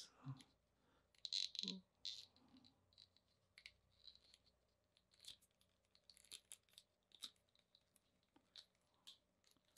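Near silence with faint, scattered clicks and rustles of small plastic parts being handled as an arm sling is fitted onto a plastic action figure, a little busier about a second in.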